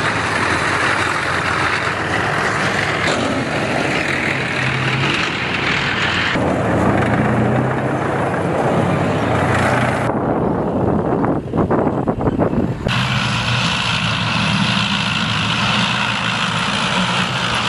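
Heavy tracked armoured vehicles running, engine and track noise in several shots that change abruptly every few seconds. About ten seconds in the engine noise thins out for a few seconds, broken by a quick run of sharp knocks.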